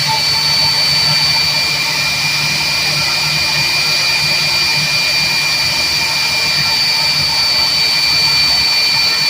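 Airbus A321 jet engine running steadily on the ground after a normal start: a loud, even, high-pitched whine with a second, lower whine over a low hum.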